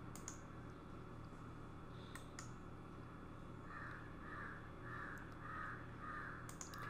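Faint computer mouse clicks over a low, steady room hum, a few of them near the end as a menu item is chosen. From about halfway, a soft run of evenly spaced calls, about two a second, sounds faintly in the background.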